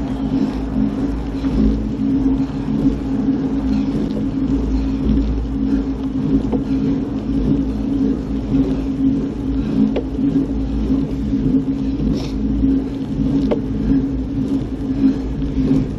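A vehicle engine running at a steady pitch with a constant low rumble, as when riding at an even speed.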